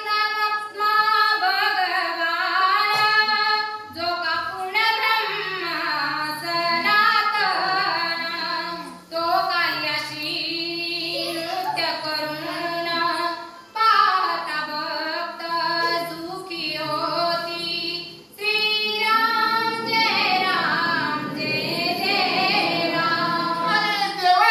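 A female voice singing a devotional Marathi verse in long phrases, the pitch sliding up and down, with short breaks for breath between phrases.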